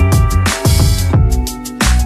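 Background music: an instrumental track with a steady drum beat, a snare hit about every 1.3 seconds, over held pitched notes.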